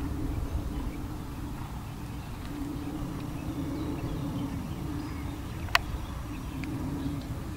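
Open-air field ambience: a low rumble of wind on the microphone under a wavering hum that comes and goes, with a few faint chirps and one sharp click near the six-second mark.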